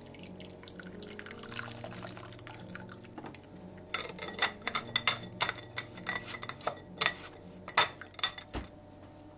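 A kitchen utensil clinking against a mixing bowl in a quick, irregular run of sharp, ringing clinks, starting about four seconds in, over soft background music.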